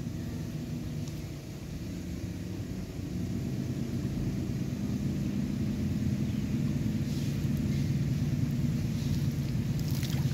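A steady low engine hum, growing a little louder about three seconds in. Near the end, water splashes as handfuls are thrown over a bather's head.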